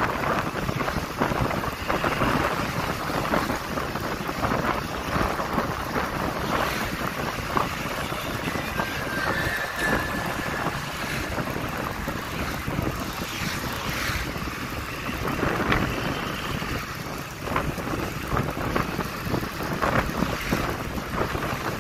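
Wind buffeting the microphone on a moving vehicle, over steady engine and road noise from traffic.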